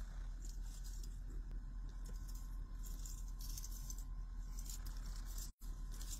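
Steady low hum of a car cabin with irregular light rattling and rubbing from a phone being handled close to the microphone. The sound cuts out for an instant about five and a half seconds in.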